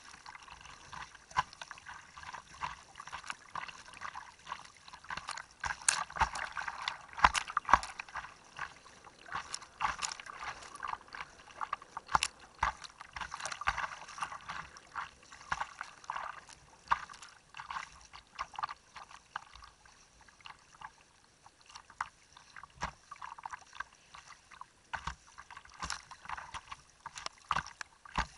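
Fast-flowing river water rushing and slapping against a kayak's hull right by the microphone, with many sharp splashes, louder for a while in the middle.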